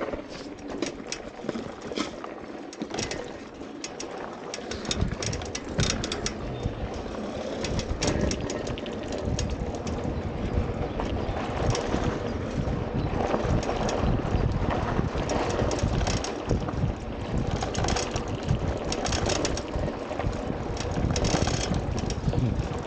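Electric off-road scooter ride: wind buffeting the microphone and knocks and rattles from the ride over rough ground, taking over about four seconds in. A bird calls during the first few seconds.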